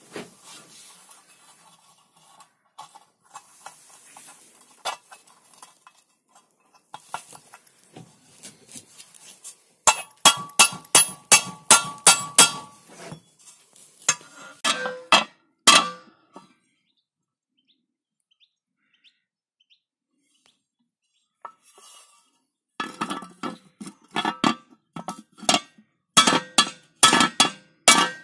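Soft clinks of small metal parts being handled, then a hammer striking the steel parts of a rotary mower's cutting disc. The strikes come in two quick runs of sharp, ringing metallic blows, one about ten seconds in and one near the end, with a silent gap between.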